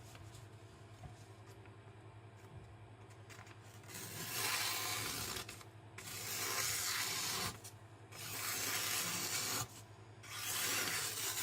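Kitchen knife slicing through magazine paper four times, each cut a hiss of about a second, starting a few seconds in: a paper test of an edge fresh off a 1000-grit whetstone.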